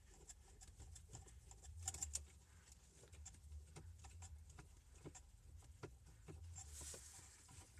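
Faint, irregular small clicks and ticks of a screwdriver turning Phillips screws in plastic dash trim.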